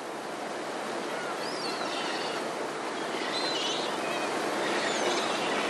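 Steady wash of sea water, growing slightly louder, with a few faint bird chirps in the middle.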